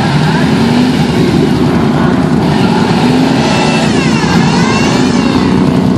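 Off-road 4x4 engine revving hard under load, as when pulling a stuck vehicle through mud.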